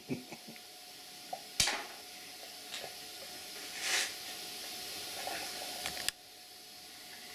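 Steady background hiss with light clicks of tools and parts being handled. There is a sharp click about a second and a half in, a short hissing puff around the middle, and another sharp click near the end, after which the hiss drops.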